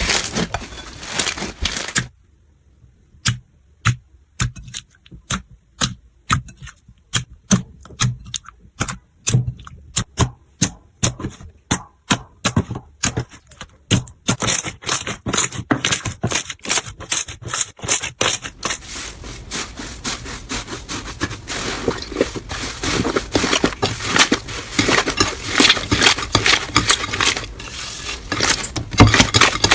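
Slime being squished and poked by hand. Trapped air makes sharp separate clicks and pops at first, then a dense, unbroken crackling through the second half.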